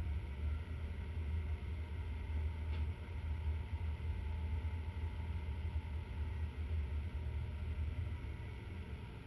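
Low, steady rumble inside a NASTAR astronaut centrifuge gondola during a high-g run, starting abruptly with a click and easing off near the end.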